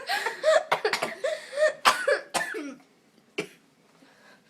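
A person coughing and clearing the throat in a failed attempt to burp: a string of short throaty coughs, then one more sharp cough about three and a half seconds in.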